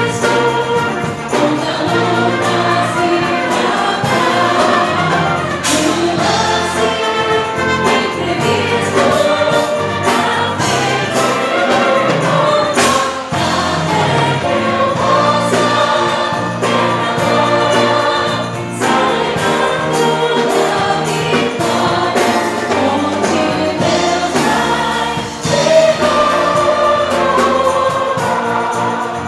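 A choir singing gospel music over band accompaniment, continuing without a break.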